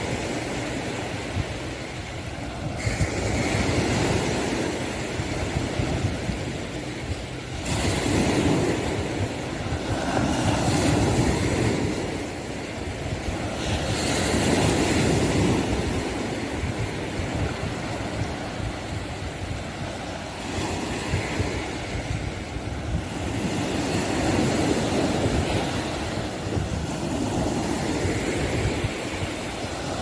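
Sea waves breaking and washing onto a sandy beach, swelling and fading every few seconds, with wind rumbling on the phone's microphone.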